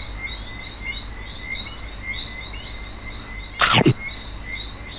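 Nature-ambience bed of animals chirping: short chirps repeat a few times a second over a steady high buzz. About three-quarters of the way through, one loud call sweeps downward in pitch.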